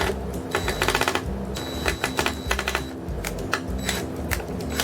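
Short bursts of rapid clicking and rattling as the plastic housing and parts of a Hoover vacuum cleaner are handled and fitted during repair.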